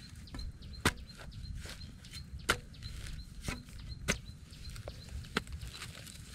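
Small metal spade on a metal-pipe handle chopping into hard, cracked dry mud: about six sharp strikes at uneven intervals, the loudest about a second in and halfway through, with clods scraped and loosened between them.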